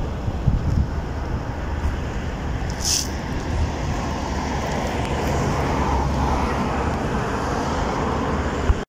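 Steady road traffic noise, a low rumble of passing vehicles that swells slightly past the middle, with a brief high-pitched sound about three seconds in.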